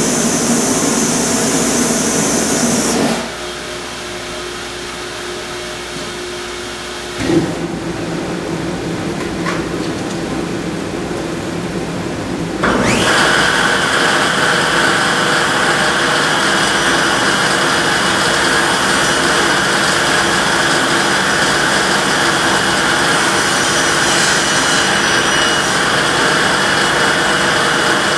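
Table saw running while a test shoulder cut is made on a wooden stool stretcher with a crosscut sled. The sound drops back about three seconds in, then jumps up about thirteen seconds in to a louder, steady machine noise that holds.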